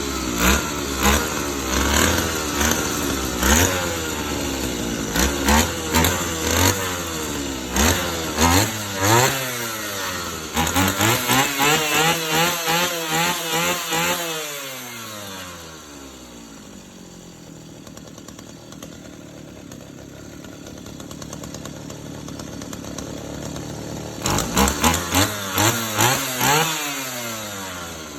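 Small two-stroke engine running on test, blipped up and down repeatedly for about ten seconds. It is then held at high revs for a few seconds, drops back to a steady idle, and near the end gets another quick series of throttle blips before settling.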